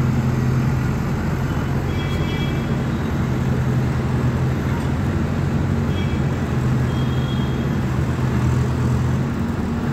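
Heavy construction-machine diesel engine running steadily with a low, even hum, with a few faint short high chirps over it.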